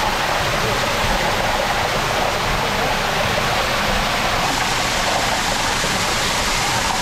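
Water jetting from the wooden nozzle at the end of a stone gristmill's chute onto its wooden water wheel, a steady rushing splash of spray.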